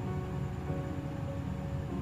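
Background music with slow, sustained notes that shift every half second or so, over a steady low hum.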